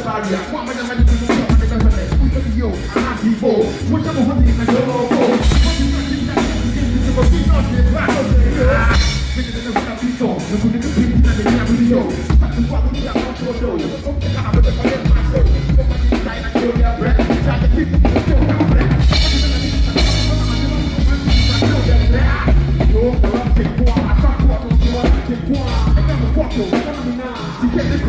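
A live band playing music, with a drum kit keeping a steady beat of kick drum and snare.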